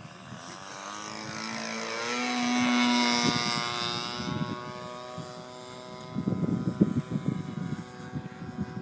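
Nitro glow-engine RC warbird flying a low pass: the propeller-driven engine note swells to its loudest about three seconds in, then fades as the plane climbs away. Gusty low rumbling follows near the end.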